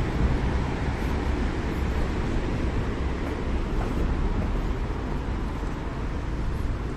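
Steady outdoor city ambience: a low rumble of distant road traffic, with wind on the microphone.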